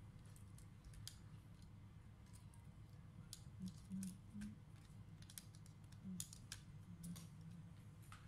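Faint scattered clicks and crinkles of hands handling the black plastic film and small parts inside an opened laptop, over a low steady hum.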